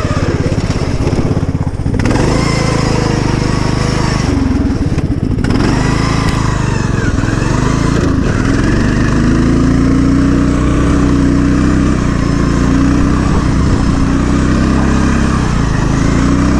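Poulan riding lawn mower's engine running hard under way, its revs dipping and picking up a few times, then held steady and higher for the second half.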